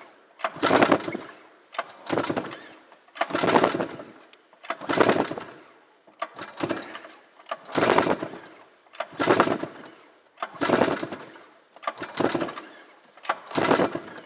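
Recoil starter of a 2003 Arctic Cat Mountain Cat 900 snowmobile pulled about ten times, once every second and a half, each pull a short surge as it spins the two-stroke twin over. The engine is being cranked for a compression test on the mag-side cylinder, which builds to 164 psi.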